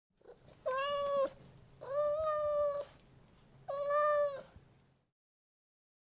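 Domestic cat meowing three times, each meow a steady pitched call, the middle one the longest at about a second.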